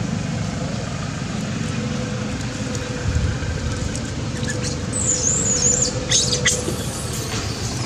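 Long-tailed macaques giving high, wavering squeaks from about five seconds in, over steady background noise.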